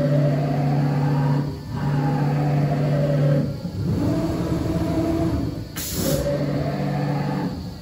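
Axis drive motors of a CNC router whining as the gantry and spindle make a tool-change move. The pitch rises and falls with each speed-up and slow-down, in four runs of about a second and a half each. A short hiss of compressed air comes about six seconds in.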